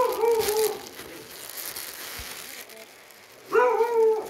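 A dog giving two short whining calls, one at the start and another about three and a half seconds later.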